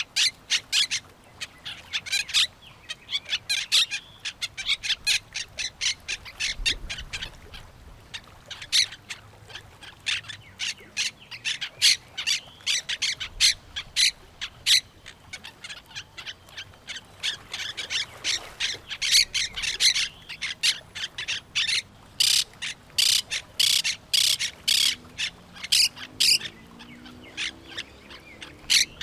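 A flock of parrots calling continuously, a rapid stream of short, high-pitched calls several to the second, overlapping one another.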